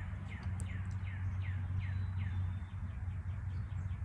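A songbird singing a run of clear down-slurred whistled notes, about two a second, changing to a quicker series of short notes in the second half, over a low steady hum.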